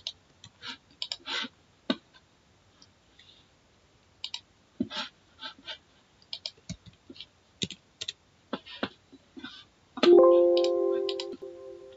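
Scattered computer mouse clicks and key taps. About ten seconds in, a Windows alert chime rings out and fades over about two seconds, sounding as a PuTTY security-warning dialog opens.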